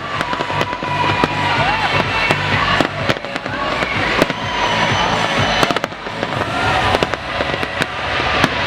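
Fireworks display going off: many sharp bangs and cracks in quick, irregular succession over a continuous rumble of explosions.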